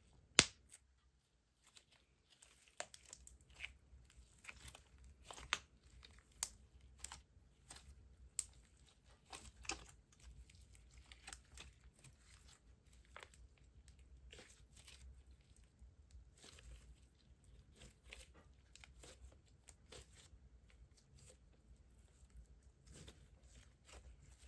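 Thick speckled slime squeezed and kneaded by hand, giving off irregular sticky pops and crackles. The sharpest pop comes about half a second in; the pops are densest through the first ten seconds and then turn smaller and softer as the slime is pressed into a ball.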